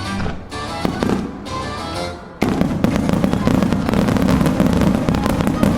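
Music plays, then about two and a half seconds in a dense barrage of aerial fireworks starts suddenly: many rapid bursts and crackles over a continuous low rumble, with the music carrying on underneath.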